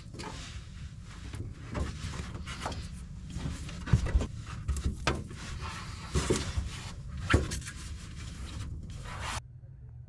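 Close-up handling noise of an LED strip light being pressed and worked into place under a pickup bed rail: rubbing and scraping with several sharp knocks, cutting off about nine seconds in.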